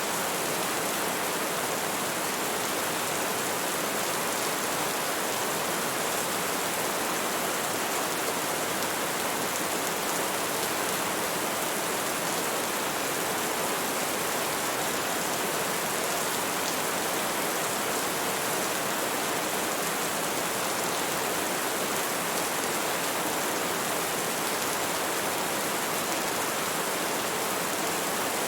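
Steady rain falling, an even unbroken hiss with no separate drops standing out and no change in intensity.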